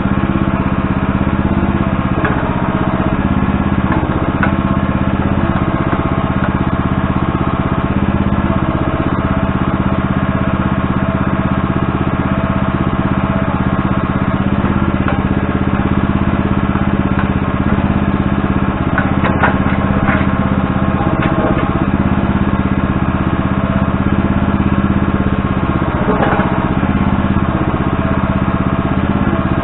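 An engine running steadily at a constant speed, with a few light knocks in the second half.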